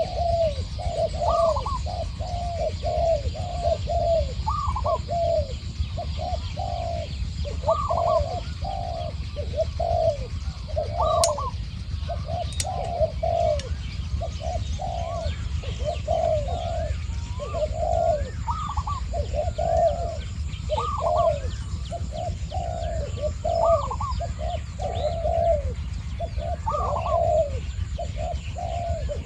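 Spotted doves cooing over and over, two birds calling back and forth: a decoy dove and a wild one answering it without a break. Two sharp clicks come about 11 and 12.5 seconds in.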